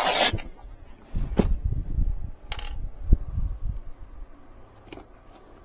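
Hands working with wires and small parts: a short rustle at the start, then scattered small clicks and low knocks that thin out toward the end.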